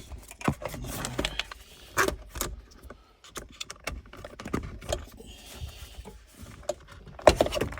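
Irregular clicks, knocks and light metallic rattles from a car's shifter assembly and its plastic clips being wiggled and worked by hand during removal.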